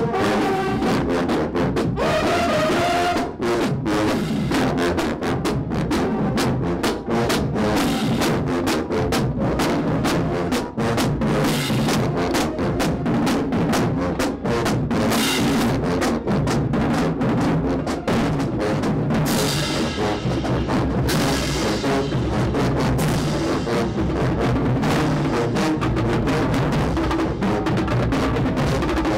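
HBCU show-style marching band playing: sousaphones and other brass over a drumline of bass drums and crash cymbals. The drums beat hard and steady, with loud cymbal crashes about halfway through and again a little later.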